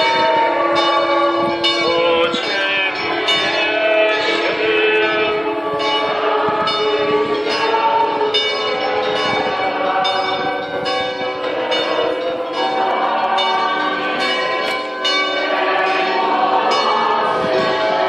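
Church bells ringing together, their many strokes overlapping into one continuous, loud peal.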